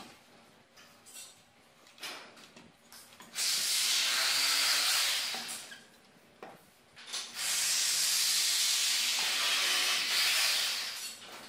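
A few light knocks, then two stretches of loud, steady hissing, the first about two seconds long and the second nearly four, with a short quiet gap between them.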